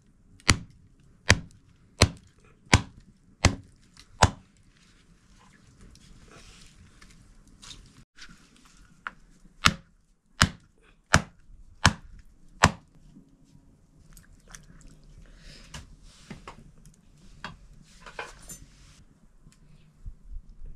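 A large knife chopping a slab of pork on a wooden chopping block. There is a run of about seven sharp chops, roughly one every three-quarters of a second, then after a pause of several seconds a second run of five at the same pace.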